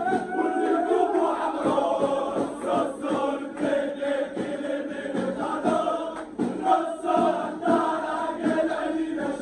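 Crowd of Raja Casablanca football supporters chanting a song together, many male voices in unison, with a steady beat running through it from about a second and a half in.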